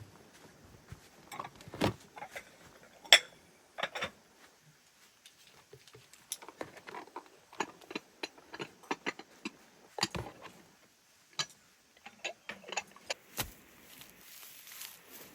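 Irregular sharp clicks and knocks of hard objects being handled, coming in scattered single strokes and quicker clusters, with the densest run in the second half.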